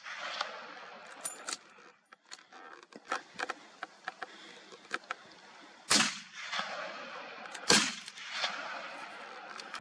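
Two loud gunshots, about 6 and 7.7 seconds in, each followed by a rolling echo across the hillside, with several fainter sharp cracks of more distant shots before them.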